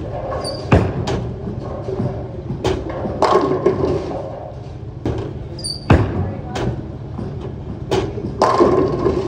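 A 15 lb Motiv Ripcord Velocity bowling ball is released onto the lane with a thump under a second in, rolls, and hits the pins about eight seconds in. Other sharp knocks and voices echo around it in a bowling alley.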